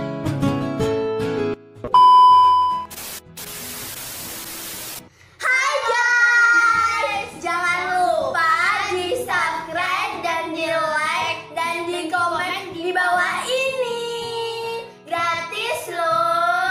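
Strummed acoustic guitar music that cuts off, then a steady high test-tone beep for about a second, then static hiss for about two seconds. After that, two girls sing loudly.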